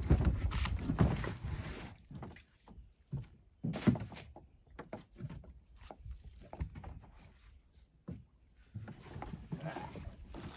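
A small kayak being boarded from dock steps: rustling and scraping for the first couple of seconds, then scattered knocks with one sharp knock about four seconds in, and more rustling near the end.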